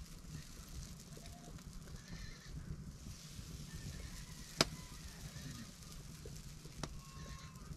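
Wood fire crackling under a flatbread griddle, with one sharp pop a little past halfway and a smaller one near the end.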